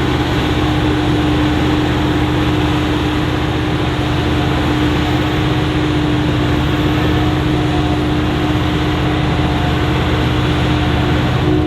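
Heavy diesel farm machinery running steadily under load, a low engine drone with a constant mid-pitched hum over it.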